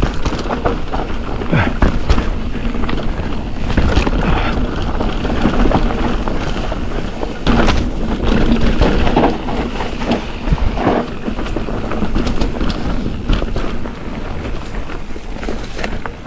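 Ibis Ripmo V2S mountain bike riding down a dirt downhill trail: a constant rush of tyre and wind noise, broken by frequent knocks and rattles as the bike goes over bumps.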